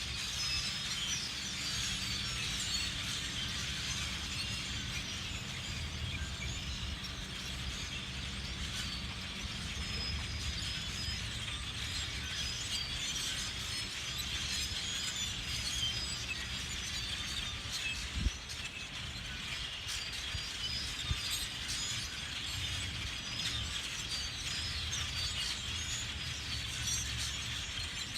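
A huge flock of birds gathering to roost in bamboo at dusk, thousands of them chattering at once in a dense, unbroken din of high squeaky chirps. A steady low rumble runs underneath, and there is a single brief thump about two-thirds of the way through.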